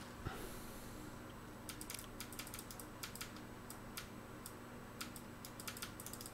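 Faint computer keyboard keys tapped in small irregular clusters, stepping through search matches, over a low steady electrical hum.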